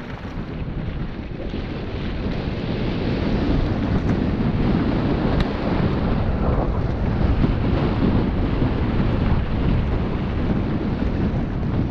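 Wind rushing over the microphone of a riding mountain biker's camera, a low, rumbling rush that gets louder about three seconds in.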